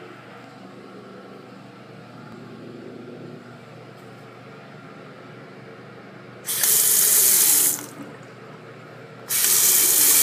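Bathroom sink faucet running into a porcelain basin in two short bursts of about a second each, switched on and off about three seconds apart, over a faint steady room hum.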